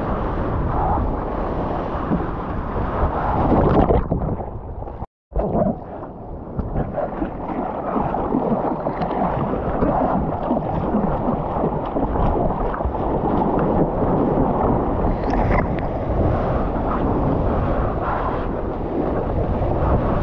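Wind buffeting a camera microphone over water splashing and sloshing around a surfboard in the surf. A little after four seconds in the sound goes dull, cuts out completely for a moment, then returns.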